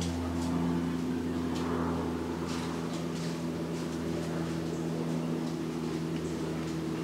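A steady low machine hum from a motor running at a constant speed, with faint scattered ticks over it.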